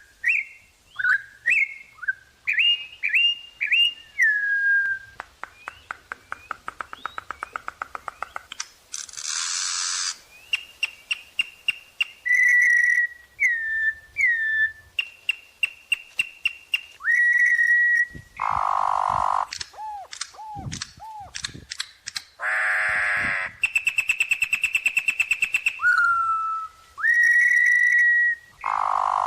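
Campo troupial (corrupião) singing a long run of varied phrases: clear whistled notes that slide up and down, fast rattling click trains, and a few harsh, buzzy calls, with short pauses between phrases.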